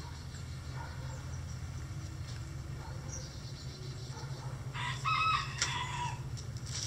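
A rooster crows once about five seconds in, a call of roughly a second and a half, over a steady low hum. Faint short calls from the flock come before it.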